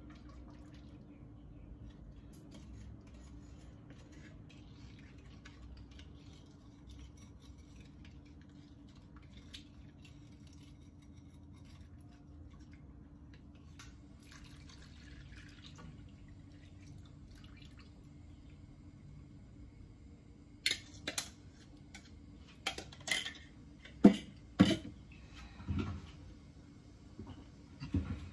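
Kitchen utensil sounds at a nonstick frying pan: a faint pour and a spoon scraping coconut milk from a plastic packet, then a run of sharp clicks and knocks, a dozen or so over several seconds, in the last third.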